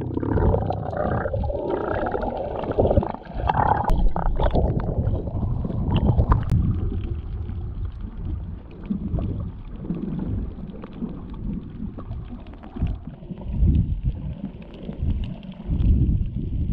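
Muffled underwater sound picked up by an action camera below the surface while snorkelling: low, irregular rumbling and sloshing of water, with a few faint clicks in the first seconds.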